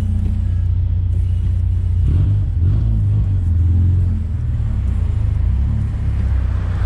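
Volkswagen Santana's AP 2.0 four-cylinder engine running while driving, giving a deep exhaust rumble that swells a little between about two and four seconds in.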